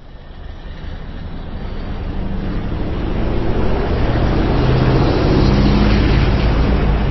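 A car driving along a road: engine and road noise growing steadily louder for about five seconds as it gathers speed, then easing slightly near the end.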